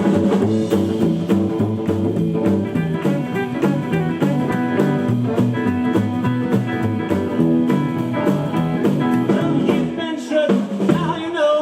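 A live rockabilly band plays a 1950s Sun Records-style song, with guitar, a stepping bass line and drums. The bass drops out briefly near the end.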